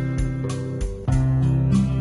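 Instrumental background music with a plucked guitar.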